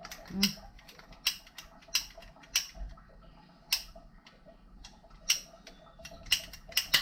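Irregular light clicks and knocks, about a dozen, from plastic pipe and fittings being handled and fitted together.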